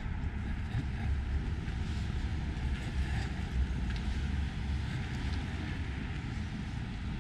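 Outdoor city street ambience: a steady low rumble of distant traffic and wind on the microphone.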